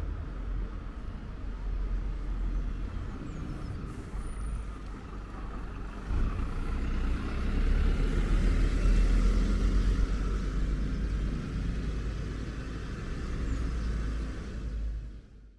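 Engine of a tanker truck running close by, a steady rumble that grows louder about six seconds in and eases off again before cutting off abruptly at the end.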